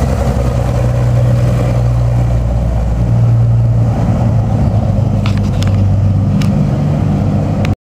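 Cessna 182's piston engine and propeller running at taxi power as the plane taxis away, a steady low drone. A few light clicks come in about five seconds in.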